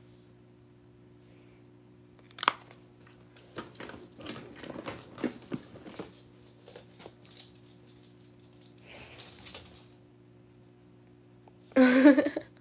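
Handling noises close to a phone microphone as things are reached for and picked through: a sharp click about two seconds in, then a few seconds of rustling and crackling with small clicks, and another short rustle later, over a low steady hum. A woman's voice starts near the end.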